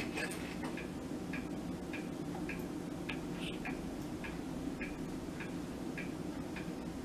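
A clock ticking steadily, about two ticks a second, over a steady low hum.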